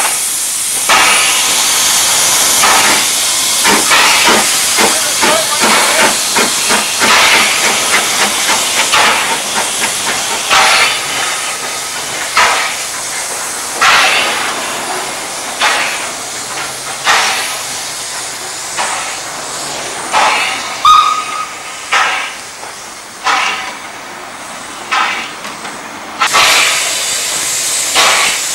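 0-6-0 saddle-tank steam locomotive working slowly, with a steady steam hiss and sharp exhaust chuffs, quick at first and then spacing out to about one a second. A brief high squeal sounds twice.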